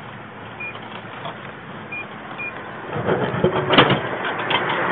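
Drink vending machine beeping briefly three times, then its vending mechanism clattering and a drink dropping into the tray with a clunk near the end.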